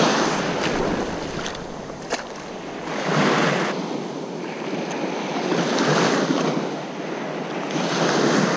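Small shore-break waves breaking and washing up the sand, the surge swelling and fading about every three seconds, with a single sharp click about two seconds in.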